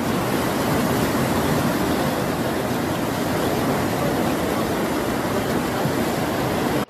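Fast-flowing floodwater rushing past a bridge in a loud, steady, unbroken wash of noise that cuts off suddenly at the end.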